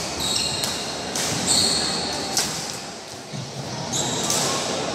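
Badminton rally in a large hall: a few sharp racket hits on the shuttlecock and short high squeaks of court shoes on the floor, with echo from the hall.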